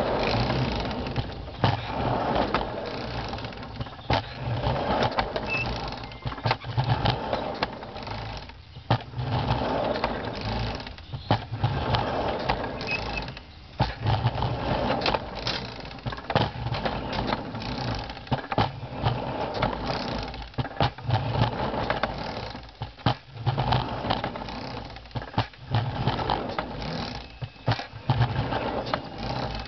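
Homemade 1/8-scale hand car rolling on 7½-inch gauge track: wheels rumbling on the rails and the pump mechanism clattering, swelling and easing in a rough rhythm, with many sharp clicks and clacks.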